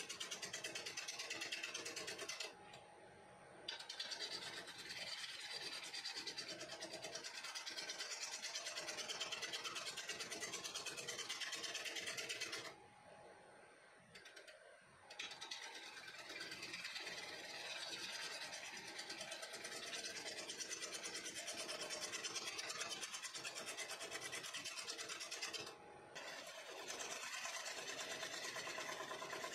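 Bowl gouge cutting a spinning wooden bowl on a wood lathe: a steady hissing cut as shavings peel off, with the lathe running underneath. The cut stops briefly three times, about 3 s in, for about two seconds around 13 s, and briefly near the end.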